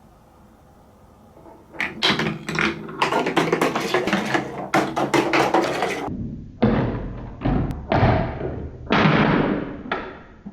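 Marbles rolling and clattering down a plastic TrixTrack marble run. A dense rattle of clicks lasts about four seconds, then come several separate rolling rushes, each rising and dying away in under a second.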